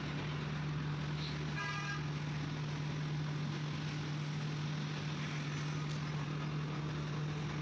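Street traffic: a steady low engine hum under a wash of road noise, with a brief vehicle horn toot about one and a half seconds in.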